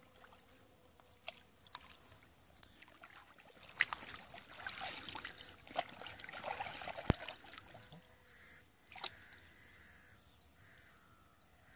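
Water splashing and trickling as a long-handled rake is dragged through shallow lake water and lifted out with weeds, busiest in the middle of the stretch. Scattered sharp clicks and knocks, the sharpest about seven seconds in.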